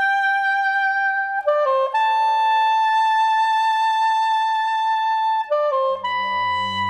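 Background music: a single melody line of long held notes linked by short quick runs, joined by a low accompaniment about six seconds in.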